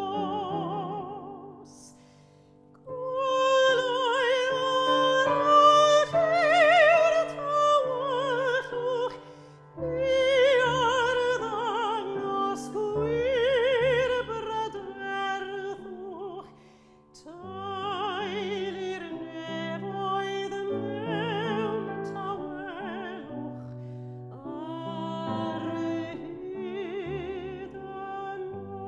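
A woman's classical operatic voice singing long phrases with a wide vibrato, accompanied by grand piano, with two brief breaths between phrases.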